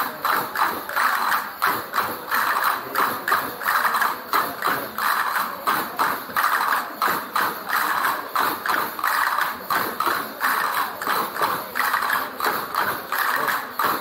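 Traditional folk music played for the dancers: an even, driving percussion beat of about two to three strokes a second that carries on steadily throughout.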